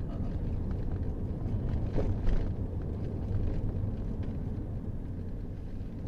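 Steady low rumble of a moving car, engine and tyre noise as heard inside the cabin, with one brief thump about two seconds in.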